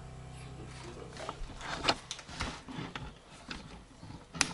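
A low steady hum for about the first second, then a run of irregular knocks and clicks of things being handled. The sharpest click comes near the end.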